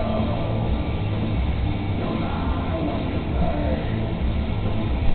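Rock music playing on a radio over a steady low hum.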